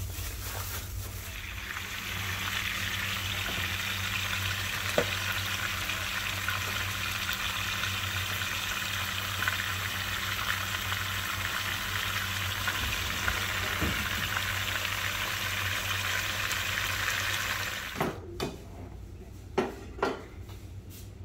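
Jack crevalle fillets pan-frying in hot oil, with a steady sizzling hiss. The sizzle cuts off suddenly near the end, and a few light knocks follow.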